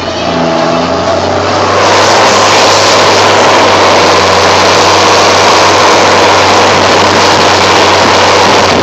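John Deere 7810 tractor's turbocharged six-cylinder diesel, fitted with an open exhaust pipe, revving up about a second in. The turbo whistle climbs in pitch and then holds steady at high revs over the engine's low drone.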